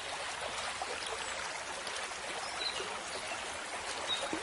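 Steady running water of a stream or brook, with a faint bird chirp or two.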